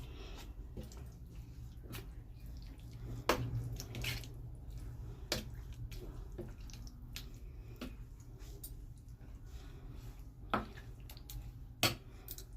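Scattered light clicks and knocks of kitchen utensils, four of them sharper than the rest, over a low steady hum.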